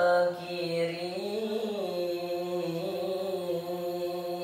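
A boy's voice reciting the Quran in melodic tilawah style, holding one long drawn-out note with a brief rise and fall in pitch about a second and a half in.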